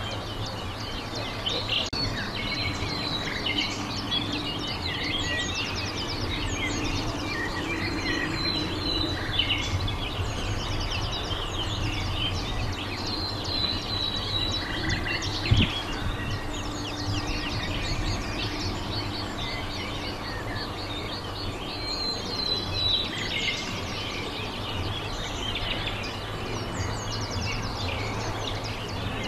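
Outdoor ambience of several small birds chirping and trilling throughout, over a steady low background hum, with a single sharp knock about halfway through.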